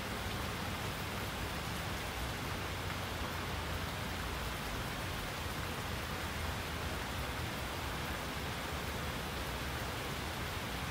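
Steady rainfall: an even hiss of many drops, with a low rumble underneath and no single drop or gust standing out.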